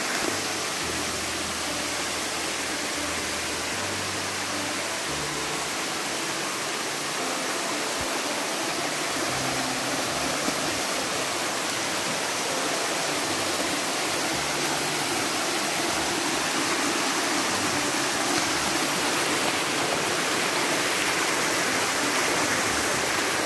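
Creek water cascading over sloping bedrock in a small waterfall: a steady, even rush of water.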